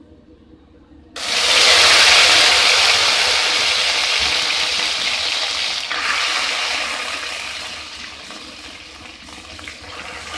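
Boiled mutton keema broth poured into hot oil in a steel kadai. It sets off a sudden loud sizzle about a second in, which slowly dies down as the liquid keeps hissing in the pan.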